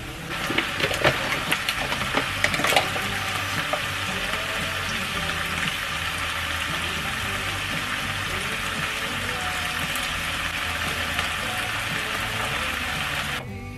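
Chicken breast and onion sizzling in a frying pan, a steady hiss, with chopsticks clicking against the pan as they stir in the first few seconds. The sizzle cuts off suddenly near the end.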